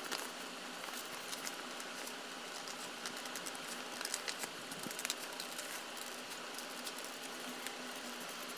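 Scissors cutting round a circle in coloured paper: faint, irregular snips and paper crinkles, most of them in the first five seconds, over a low steady hiss.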